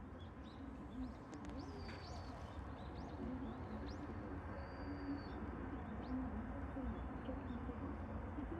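A dove cooing in low repeated phrases, with small birds giving short high chirps and a brief held whistle, over a steady low rumble.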